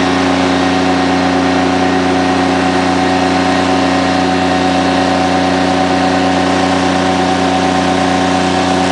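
M113 armoured personnel carrier driving, heard from on board: a loud, steady engine drone holding one pitch throughout, over an even rushing noise.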